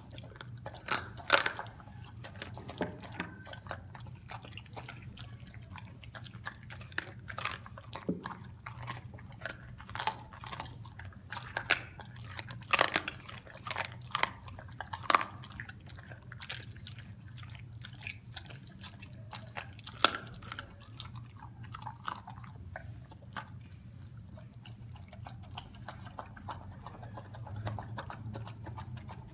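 A Doberman chewing raw chicken thigh: wet, irregular crunching and sharp cracks as she bites down on the meat and bone. Near the end there is softer licking and slurping as she eats raw egg from a stainless steel bowl.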